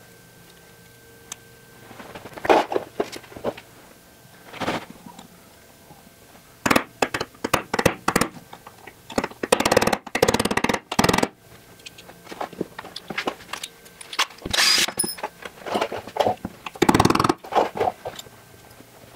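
Hammer tapping a pin punch to drive pins out of a Van's aircraft door handle assembly: clusters of quick, sharp taps, the loudest runs near the middle and toward the end. Lighter clatter of small metal parts being handled in between.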